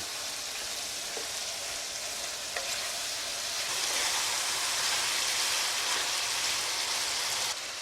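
Chunks of chicken sizzling in oil and butter in a large skillet, being stirred with turmeric and garam masala. The sizzle grows louder a few seconds in and drops suddenly near the end.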